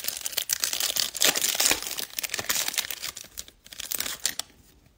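Foil wrapper of a 2020 Bowman baseball card pack being torn open and crinkled as the cards are pulled out, a dense run of crackles and sharp rustles. It stops about four seconds in.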